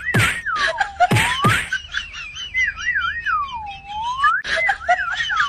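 A whistled tune of swooping notes, each sliding down and back up, with a faster wavering trill above it. Several sharp hits with quick falling tails come near the start.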